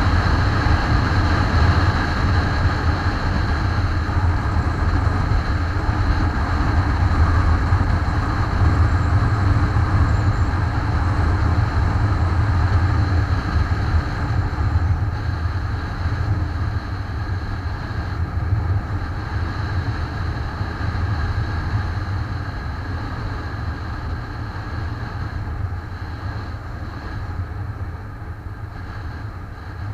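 Motorcycle engine running at road speed, heard together with wind and road noise on a camera mounted on the bike, a steady low hum that grows gradually quieter over the second half.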